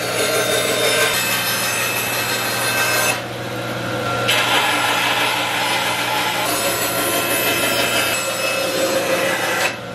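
Woodworking power tool running with a steady motor hum and cutting through wooden boards. The cutting noise eases for about a second a few seconds in, then picks up again.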